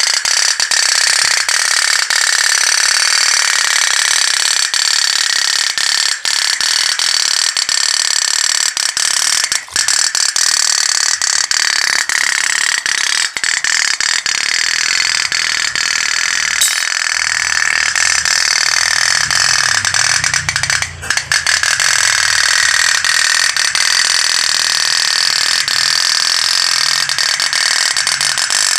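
Pop-pop (otok-otok) toy steam boat running on a big flame, its boiler diaphragm making a loud, continuous rapid rattling buzz.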